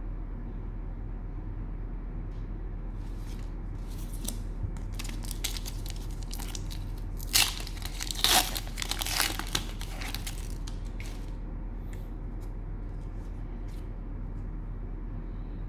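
Cellophane wrapper of a trading-card cello pack being torn open and crinkled: a run of sharp crackles, loudest between about seven and nine and a half seconds in, over a steady low hum.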